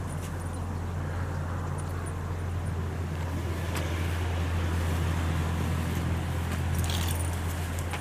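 Steady low mechanical hum, as of a motor running, over a faint hiss, with a few light clicks near the end.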